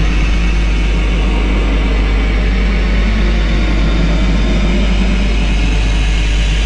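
Dark, droning background music: a loud, steady wall of sound, heavy in the low end, with no clear beat.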